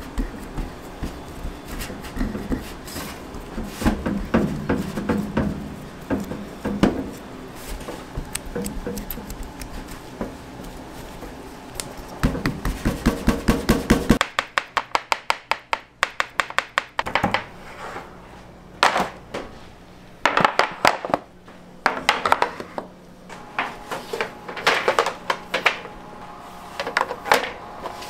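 Gloved fingers pressing and dimpling pizza dough into an oiled steel square pan. A string of soft taps and knocks on the dough and the metal quickens into a fast run of taps around the middle, over steady kitchen background noise.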